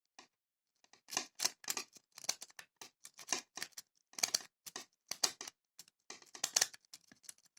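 Improvised McNally rake being raked in and out of a cheap brass pin-tumbler padlock's keyway under a tension wrench, making irregular metallic clicks and scrapes as it drags over the pins, a few a second.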